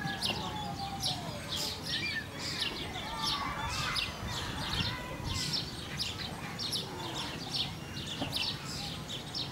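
Small birds chirping busily: a fast run of short, high chirps, with a few lower wavering calls among them.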